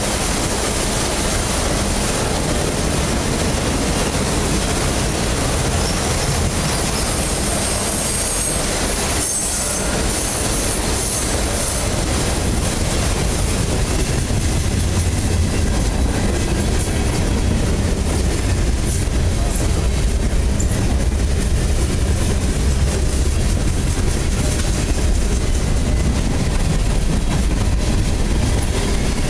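Union Pacific mixed freight train's cars rolling past at close range: a steady, loud rumble of steel wheels on rail, getting a little louder about halfway through.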